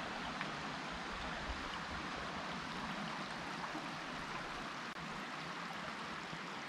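Shallow, rocky stretch of the Buffalo River running steadily over stones in a constant rush of water.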